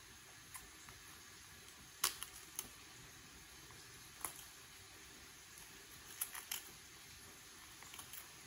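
A small kitchen knife trimming the tough outer layer off a raw artichoke: a few short, crisp snaps and cuts, the sharpest about two seconds in and a quick run of them a little after six seconds.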